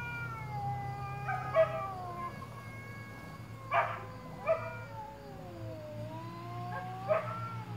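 Two cats yowling at each other in a territorial standoff: long, drawn-out wavering howls that slide slowly up and down in pitch, broken about four times by short sharp outbursts. A steady low hum runs underneath.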